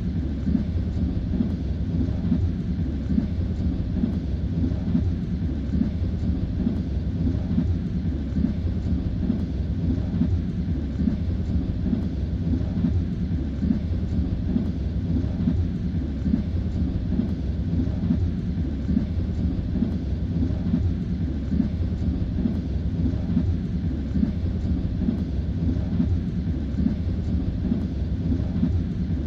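Passenger train carriage running along the rails: a steady low rumble with the knocking of the wheels on the track.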